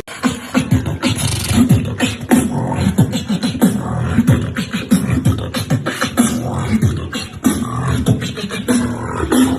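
Fast beatboxing: a human voice making rapid drum-like kicks, snares and clicks, with many short low bass notes that drop in pitch.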